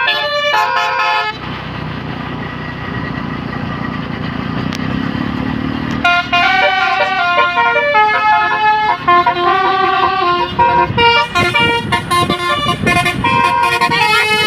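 Bus 'basuri' telolet horn, a multi-tone air horn, playing a tune of quick stepped notes. It breaks off after about a second for a few seconds of engine rumble, then starts another tune about six seconds in that runs on.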